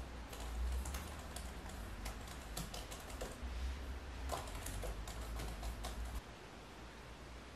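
Typing on an M1 MacBook Air's built-in scissor-switch keyboard: quick, irregular key clicks that stop about six seconds in.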